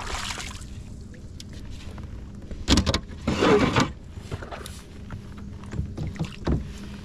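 Kayak paddle splashing in the river, with knocks against the fishing kayak's hull; two loud splashy bursts come about three seconds in.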